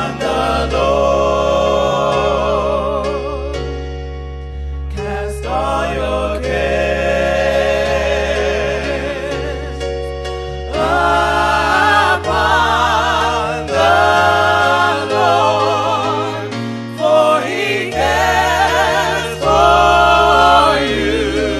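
Gospel music: voices singing sustained notes with vibrato over sustained keyboard chords and bass, with a brief lull about four seconds in.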